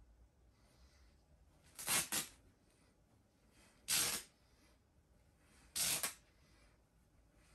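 Plush fabric of a giant stuffed toy dog being ripped apart by hand in three short tears about two seconds apart, the first one doubled.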